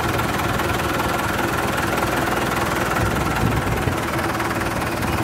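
John Deere 5510 tractor's three-cylinder diesel engine running steadily as the tractor drives forward, with a thin steady whine above the engine note.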